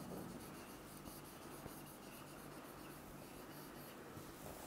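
Marker pen writing on a whiteboard: a run of faint, short strokes as a word is written out.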